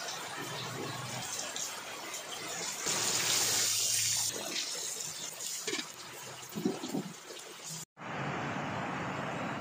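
Battered chicken necks deep-frying in a wok of hot oil, a steady sizzling hiss that swells about three seconds in as pieces are moved with tongs. After a short break near the end, a steadier hiss.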